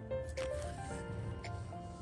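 Background music: a simple melody of short held notes over a steady bass, with a couple of faint clicks.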